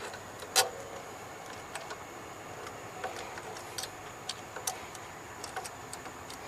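Scattered light clicks and taps of hand tools and parts being handled while the alternator and drive belt are refitted, with one sharper knock about half a second in and faint irregular ticks after it.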